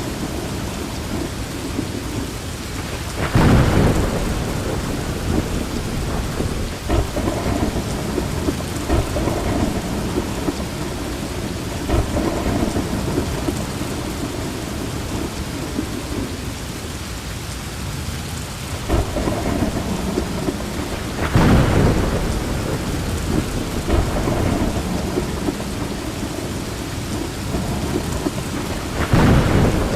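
Heavy rain falling steadily through a thunderstorm, with thunder rumbling low underneath. Three louder thunderclaps stand out, a few seconds in, about two-thirds of the way through, and near the end.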